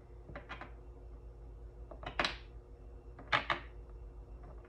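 Tarot cards being handled, making a few short crisp papery snaps: a strong one about two seconds in and two close together a little after three seconds.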